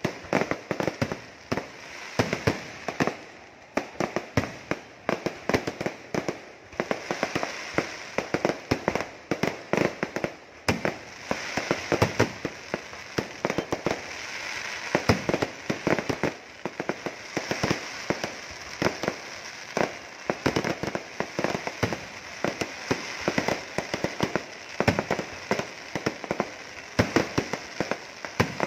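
Fireworks display: a continuous barrage of sharp bangs and crackling from bursting shells and crackers, several bangs a second without a break.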